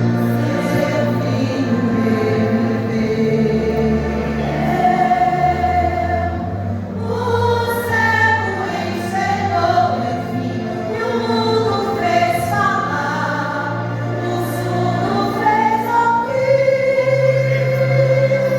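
Gospel vocal group singing a worship song in harmony, with long held notes over a steady low instrumental accompaniment.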